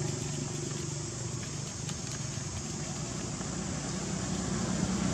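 Steady outdoor background noise with a low, engine-like hum that fades about half a second in and builds again near the end.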